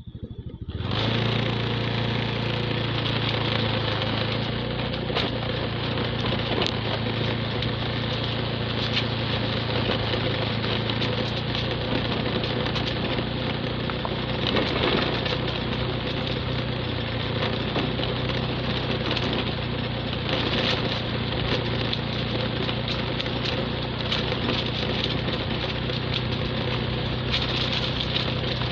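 Motorcycle engine running at a steady, unchanging pitch while the bike is ridden along, fading in over the first second.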